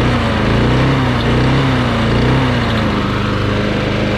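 Push lawn mower's small gasoline engine running steadily at its adjusted speed, its pitch wavering slightly now and then; the RPMs, which had been low, were just raised at the throttle linkage and sound right.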